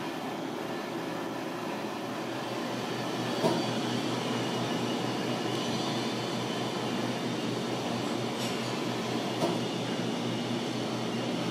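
Steady mechanical background hum with two short, light clinks, one about three and a half seconds in and another about nine seconds in.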